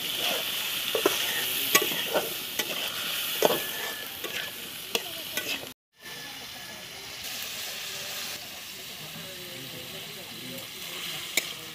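Cauliflower, potato and chicken sizzling in an iron kadai while a ladle stirs and scrapes them, with sharp knocks of the ladle against the pan. The sound cuts out for an instant about halfway, then a softer sizzle with lighter stirring goes on.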